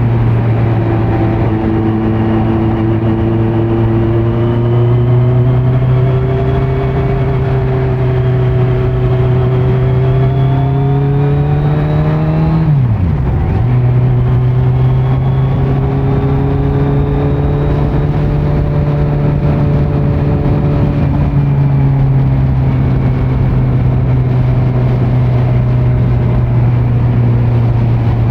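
Kawasaki Z900's inline-four engine through a Leo Vince muffler on stock headers with no dB killer, running under steady throttle while riding. The note climbs slowly, dips sharply and picks back up about halfway through, then eases gradually lower.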